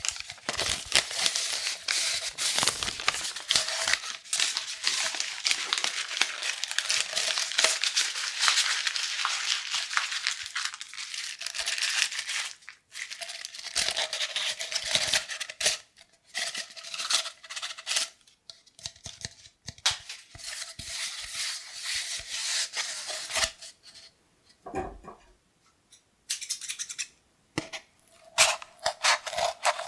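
Cardboard kitchen-roll tube being scratched and rubbed in dense, rapid scratchy strokes. There are brief pauses, and it goes quieter for a few seconds near the end before the scratching picks up again.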